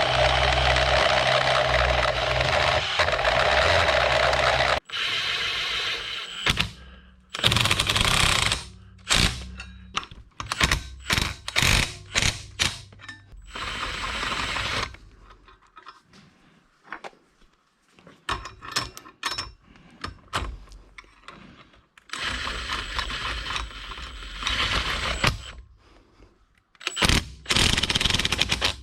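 Workshop power tool running: a steady run for about five seconds, then many short starts and stops, then another steady run near the end.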